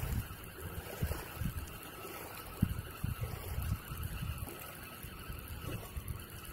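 Wind buffeting the microphone in uneven low gusts and thumps over a faint steady hiss.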